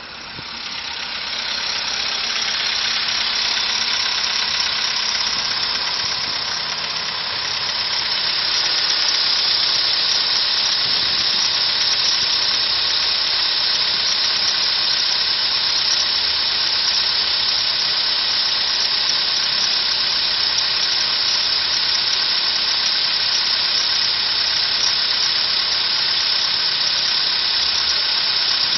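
Car engine running steadily, getting louder over the first two seconds and then holding. The engine knock is gone, which the owner puts down to the −10 °C frost.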